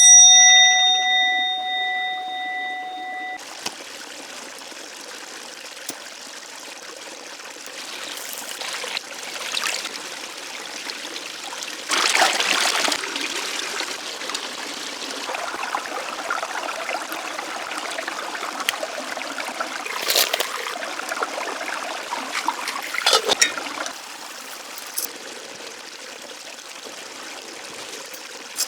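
A ringing tone of several steady pitches fades over the first three seconds and cuts off suddenly, then water trickles steadily, with louder splashes or pours a few times.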